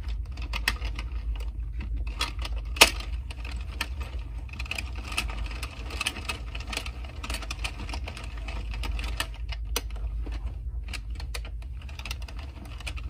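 Addi Express 22-needle circular knitting machine clicking and rattling as its crank is turned by hand and yarn is worked onto the plastic needles to cast on. One sharper click comes about three seconds in, and a low steady hum runs underneath.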